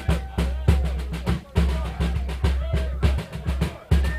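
A Mississippi hill-country fife and drum band playing. A bass drum pounds a heavy, uneven beat under busy snare drumming and rolls, with a faint fife melody above.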